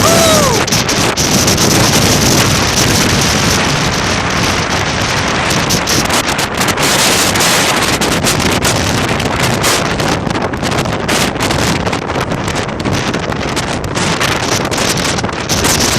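Strong coastal gale buffeting the microphone: loud, unbroken wind noise that gusts and eases.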